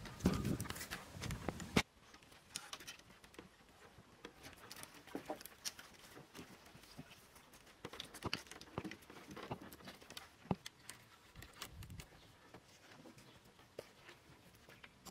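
Scattered light knocks, taps and rustles of hands and bare feet working on a frame of wooden poles lashed with rope. A denser, louder stretch of handling noise in the first two seconds cuts off suddenly.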